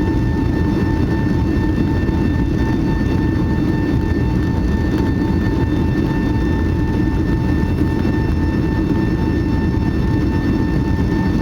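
Steady cabin noise inside a Boeing 757: a loud even rumble of jet engines and airflow with a steady whine on top.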